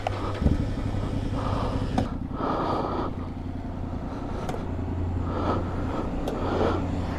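Steady low mechanical hum, with a few light clicks as a motorcycle's locking fuel filler cap is pushed shut and its key turned.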